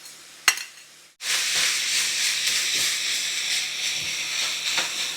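Ground beef and vegetables frying in a hot skillet, with carrots just added. It is quiet for about a second with one light click, then a loud steady sizzle starts suddenly and holds.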